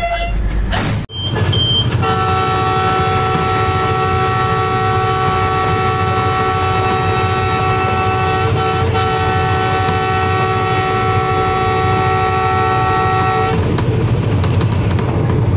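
A locomotive horn sounds and breaks off about a second in. It comes back as one long steady blast lasting about eleven seconds, with two short breaks in the middle. Near the end the horn stops and the train's running rumble on the track is left.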